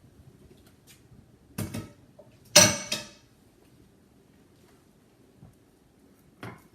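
Kitchen cookware being handled: a knock, then a loud metallic clank that rings briefly, and a smaller knock near the end.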